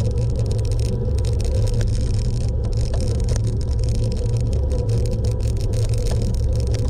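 Steady low rumble of a vehicle on the move during a road ride, with a faint steady high tone and no changes.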